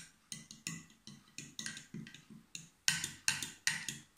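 Metal teaspoon stirring milk in a drinking glass, clinking against the glass about three or four times a second, louder near the end.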